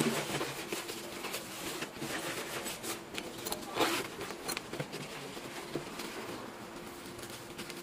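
Nylon fabric and webbing straps of a tactical rifle bag rustling and rubbing as they are handled, with small clicks of plastic strap buckles; the loudest rustle comes about four seconds in.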